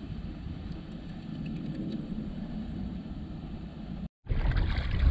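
Wind rumbling on a small camera microphone at sea, a steady low buffeting. Just after four seconds the sound drops out for a moment and comes back louder and rougher.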